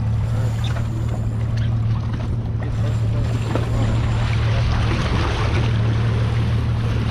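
Boat engine idling with a steady low hum, with water splashing and wind noise over it that grow a little louder about two-thirds of the way through.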